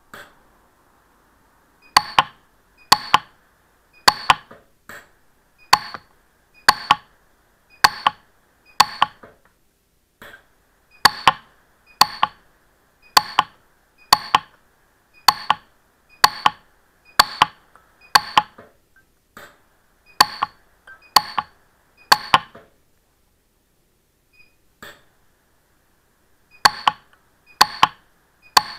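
Lampert PUK 3S pulse-arc micro welder firing single weld pulses into 18ct gold to build up a setting, each pulse a sharp snap, about one a second. The snaps run for some twenty seconds, stop for a few seconds, then start again near the end, over a faint steady hiss.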